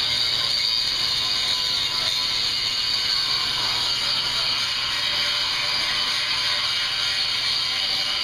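Overhead bridge crane's electric hoist running steadily with a heavy load on its slings, a continuous mechanical whir.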